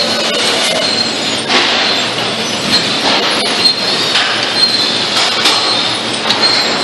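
Loud industrial din of a beef slaughter line: metal trolleys carrying carcasses squeal and clank along the overhead rail over steady machinery noise, with a thin high squeal on and off and sharp metallic clanks here and there.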